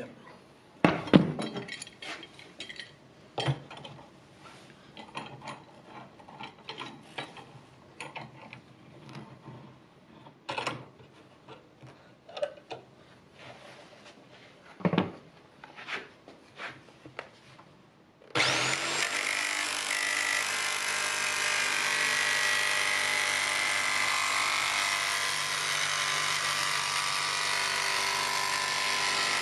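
Scattered knocks and clicks of clamps and workpieces being handled on a wooden bench, then about eighteen seconds in an electric jigsaw starts with a brief rising whine and runs steadily, cutting a sheet of acrylic with a wood-cutting blade.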